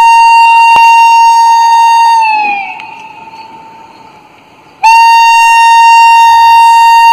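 WAP-4 electric locomotive's air horn sounding long single-note blasts as the train approaches. The first blast is held, then sags in pitch as it dies away about two seconds in. A second long blast starts abruptly near five seconds in.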